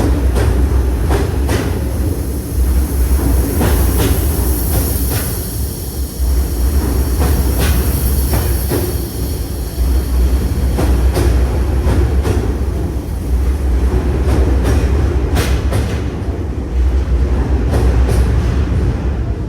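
Tokyu electric train running through the station at close range: a heavy rumble with repeated sharp clacks of wheels over rail joints and a steady high whine. It fades away near the end.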